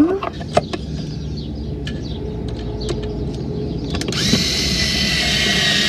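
An electric drill runs steadily for about two seconds, starting suddenly about four seconds in, driving a screw through a metal L-bracket into a wooden cabinet. Before it come light clicks and handling knocks.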